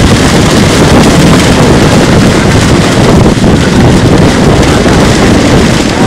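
Loud, steady wind buffeting the microphone, mixed with the churning splash of a mass of fish thrashing in a seine net as it is hauled in.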